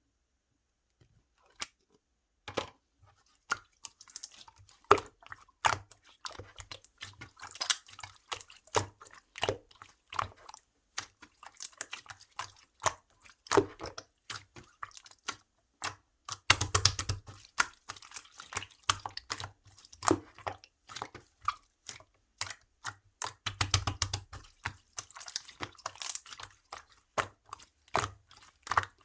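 Clear slime being pressed and squished by hand, making irregular wet clicks and pops, starting about two seconds in. Twice, a little past halfway and again about four-fifths in, it gives a dense spell of rapid crackling pops.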